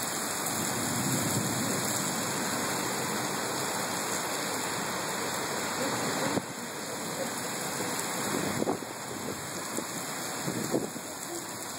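Heavy rain falling steadily, a dense hiss, during a severe thunderstorm. It drops a little in level about six seconds in, and a few sharp taps sound after that.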